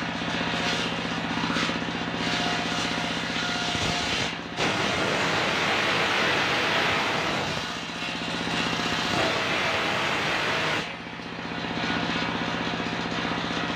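Large table-mounted circular saw blade driven by a stationary engine, running steadily, then cutting lengthwise through a slab of coconut-palm wood from about four and a half seconds in to about eleven seconds in. The cut is a loud hissing rasp over the engine's hum and eases briefly partway through. The engine hum continues after the cut ends.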